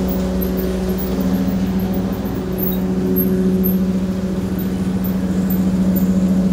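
Factory machinery running steadily: an even, constant-pitched mechanical hum over a low rumble.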